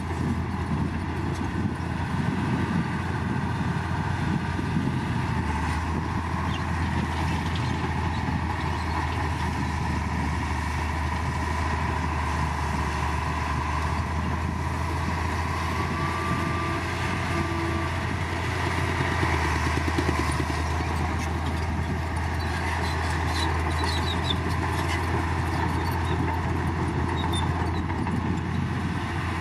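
Heavy earthmoving machinery's diesel engines running steadily at work, with a deep continuous drone.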